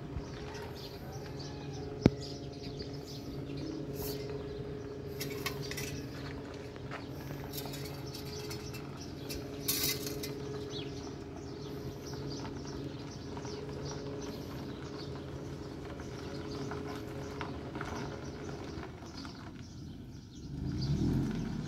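Nissan pickup truck's engine idling with a steady low hum, a low rumble swelling briefly near the end. Birds chirp here and there over it, with a sharp click a couple of seconds in.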